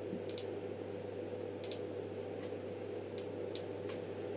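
About six light, sharp clicks of controls being pressed, spaced unevenly, as the signal frequency is turned down, over a steady low electrical hum.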